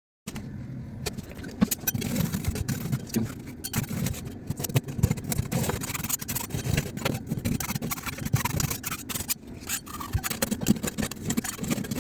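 Vacuum cleaner running and sucking up debris from rotten wood, with many sharp clicks and rattles of bits hitting the nozzle and hose. It starts abruptly just after the beginning.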